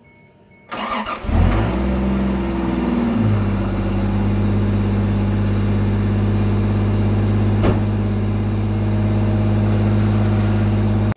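Toyota 2JZ-GTE straight-six with a single turbo being cranked over by the starter and catching about a second in. It runs a little higher at first, then settles to a steady idle after about three seconds. The engine is idling with engine-flush additive in its oil.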